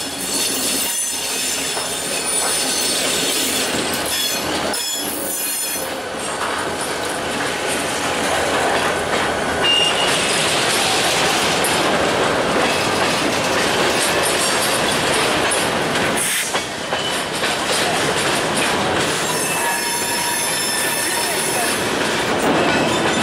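Freight train of covered hopper cars rolling past, the wheels rumbling and clattering over the rails while the wheel flanges squeal in thin high tones. The squeal is strongest in the first several seconds and again near the end.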